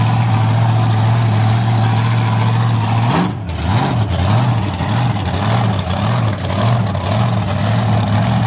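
Mega truck engine running at a steady idle, then about three seconds in its pitch starts rising and falling over and over, about every half second, as the throttle is blipped.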